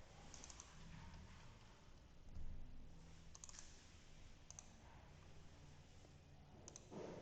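Faint computer mouse clicks, a few scattered pairs of sharp clicks, over a low room hum.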